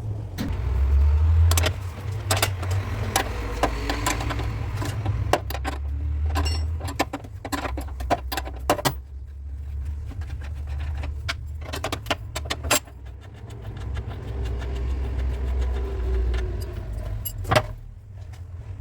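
Irregular metallic taps and clinks of tools working car body metal, over a steady low rumble.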